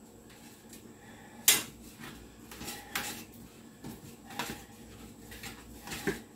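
Scattered clicks and knocks as the parts of an opened box fan are handled during cleaning, with one sharp click about a second and a half in.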